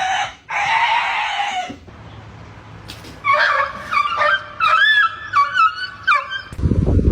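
A cat's loud hissing yowl, which stops after under two seconds. After a short lull comes a quick run of high, pitched yelps and whines from a dog, some rising and some falling. A low rumble comes in near the end.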